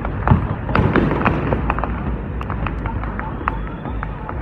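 Fireworks display: a string of sharp crackles and pops over a deep rumble of booming shells, busiest in the first couple of seconds and thinning after that.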